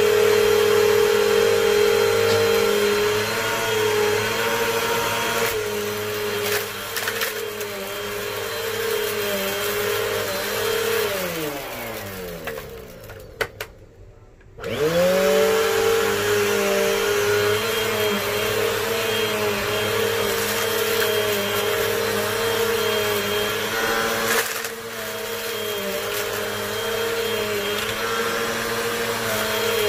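Vacuum cleaner motor running steadily. About twelve seconds in it is switched off and its pitch falls as it winds down, leaving a second of near silence. It is then switched back on, rising quickly to speed and running steadily again.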